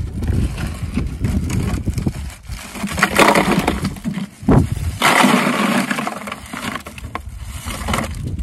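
Bagged ice being emptied into a plastic cooler: the cubes rattle and crunch against each other and the cooler walls along with the crackle of the plastic bag, loudest in two pours about 3 and 5 seconds in, with a dull thump between them. Wind rumbles on the microphone underneath.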